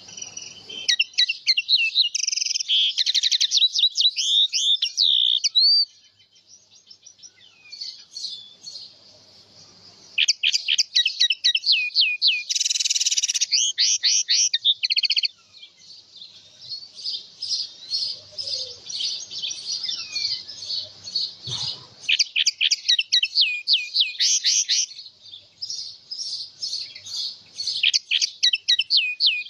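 A rose finch singing a long, fast, warbling song of rapid up-and-down notes, in three bouts with a quieter gap about a fifth of the way in.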